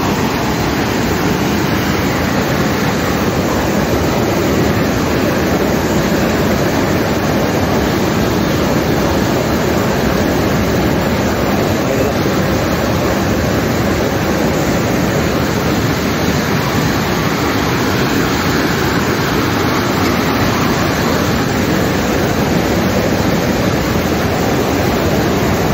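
Steady rush of river water pouring through rapids, an even, unbroken noise.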